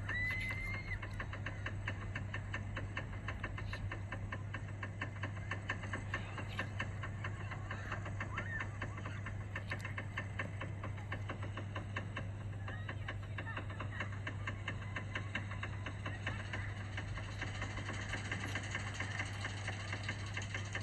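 Roller coaster train climbing its lift hill: a rapid, even clacking from the lift chain and anti-rollback ratchet over a steady low hum, with a few faint chirping calls.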